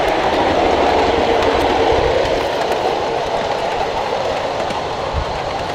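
Miniature ride-on train running along its track: a steady rumble of wheels on rail with some clatter, growing slightly quieter towards the end.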